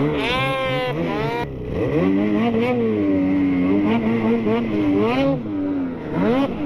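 Snowmobile engine revving as it is ridden, rising and falling with the throttle. The revs climb sharply at the start and drop off abruptly about a second and a half in. They then pick up again and waver, with another quick rev near the end.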